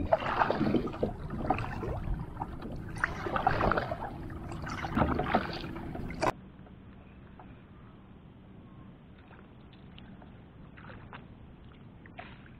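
Kayak paddle strokes: the paddle blades dipping and splashing with water washing along the hull, swelling about every second and a half. About six seconds in this cuts off suddenly to a much quieter, duller stretch of faint water lapping with a few light clicks.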